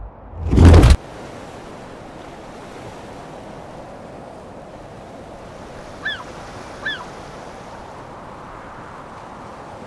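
A loud swelling whoosh that cuts off suddenly about a second in, then steady surf and wind ambience, with two short bird calls about six and seven seconds in.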